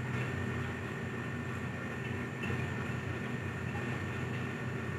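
Steady background hum of a running machine in the room, low and even with a thin high whine on top, with no distinct knocks or clicks.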